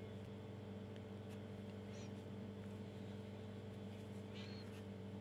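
Quiet, steady low electrical hum, with a few faint brief ticks and two short, faint high chirps, one about two seconds in and one near the end.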